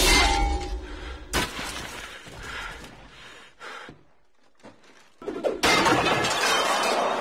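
Film sound effects of a sword fight: a sudden loud clash, further hits, then a loud crash of metal goblets and jugs knocked clattering and smashing off a table by a thrown sword, over orchestral score.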